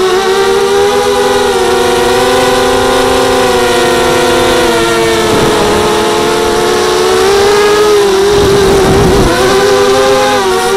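FPV racing mini quadcopter's brushless motors and propellers whining in flight, heard from the onboard camera: several close tones that wander in pitch with the throttle. The pitch dips briefly and climbs back twice, the second time near the end with a rush of wind noise.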